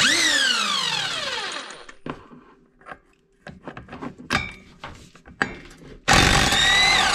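Handheld power tool running in two bursts of about two seconds, one at the start and one near the end. Its whine falls in pitch as the first burst winds down. Short metallic clinks and knocks come between the bursts.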